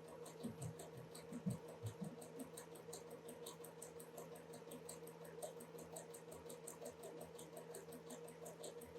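Sewing machine running steadily as it stitches a seam: a constant motor hum with a rapid, even ticking of the needle.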